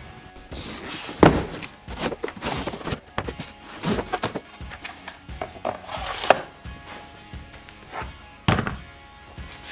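Irregular knocks, thuds and cardboard rustling from a DeWALT 20V 12-inch compact cordless chainsaw being taken out of its box and handled on a workbench, over background music. The sharpest knocks come about 1, 4, 6 and 8.5 seconds in.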